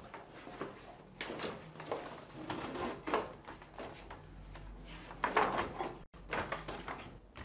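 Faint rustling and light knocks of papers and a folder being handled on a desk, in a few short separate bursts.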